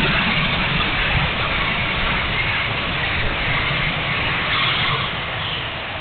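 Onboard sound of an E-flite F-16 70mm electric ducted-fan model jet in flight: a steady rush of fan noise and airflow over a gusty low rumble of wind on the microphone. It eases off gradually near the end.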